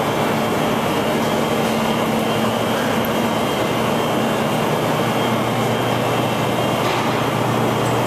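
Steady, loud drone of power plant machinery: an even mechanical hum with a low tone under a wide hiss, unchanging throughout.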